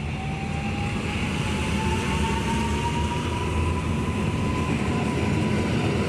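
Koleje Mazowieckie electric multiple unit pulling out of a station: a single electric whine rises slowly in pitch as the train gathers speed, over a low rumble that grows gradually louder as the carriages pass close by.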